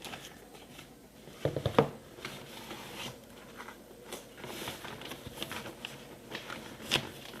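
Cardboard box and packaging being handled during unboxing: soft rustling and scraping, with a louder bump about one and a half seconds in and a sharp crinkle or click near the end.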